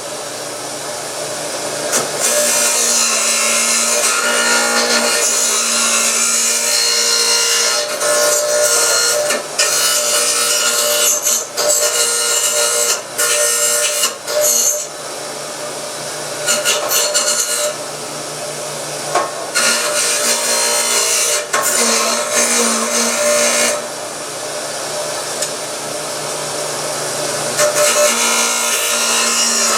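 Power wire wheel scrubbing weld slag off steel gun parts: a steady motor hum under a harsh scratchy brushing that drops away briefly several times as the work is lifted off and pressed back on.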